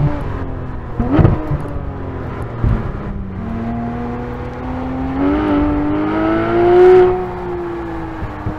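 Porsche 911 GT3 RS 4.0's naturally aspirated 4.0-litre flat-six, its note falling as the car slows for a corner, with two brief loud bursts in the first three seconds. It then rises steadily under acceleration to its loudest point about seven seconds in and drops back a little.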